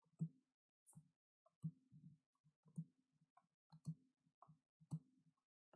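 Faint soft clicks and taps, about one or two a second at an uneven pace, as a stack of baseball trading cards is flipped through by hand and each card is slid to the back.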